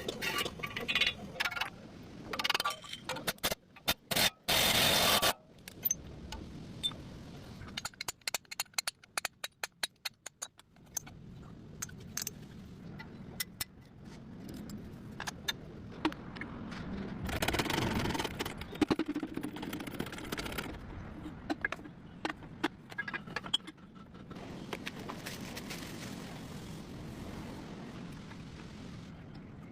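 Metal tools and parts clinking and scraping during front wheel bearing work, with a fast run of clicks about a third of the way in and a louder noisy stretch before it.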